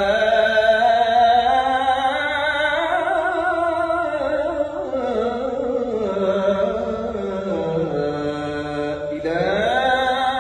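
A man's solo voice chanting in long melismatic phrases, holding high notes with a wavering vibrato; the pitch sinks step by step through the middle and climbs again near the end.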